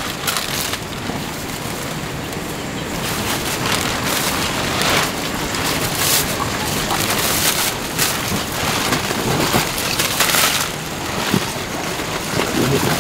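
Heavy rain falling steadily, with short louder swells of noise every second or two.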